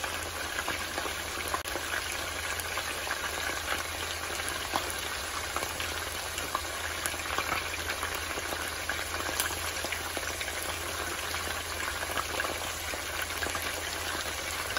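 Chicken pieces frying in oil in a frying pan: a steady sizzle, dotted with frequent small pops and crackles.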